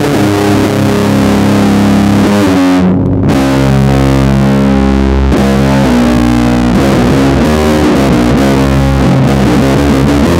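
Electric bass played fingerstyle in a fast metal riff, with a distorted metal recording playing along. About three seconds in, the high end briefly drops out before the full band sound returns.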